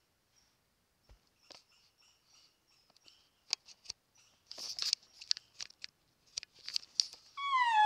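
Crackling steps through twigs and forest litter. Near the end a hand-held elk bugle call starts a loud, clear pitched note: the opening of an imitation bull elk bugle.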